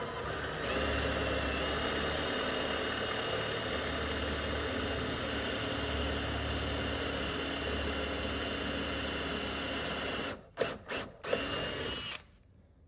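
Cordless drill boring into a wooden board, its motor running steadily with a whine for about ten seconds. It then stops, gives a few short blips, and runs once more briefly, ending with a rising whine just before the end.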